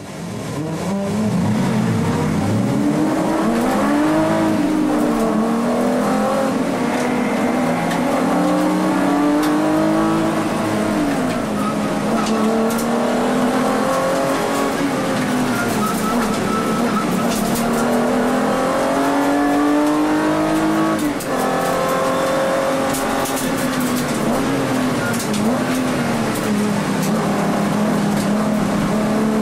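Volkswagen Vento VR6 race car's VR6 engine heard from inside the cabin at racing speed, its revs climbing and dropping repeatedly through gear changes, with a sharp drop about 21 seconds in.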